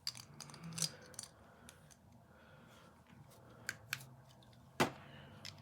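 Scattered sharp clicks and snaps of hard plastic Beyblade parts being handled and fitted together, the loudest click about five seconds in.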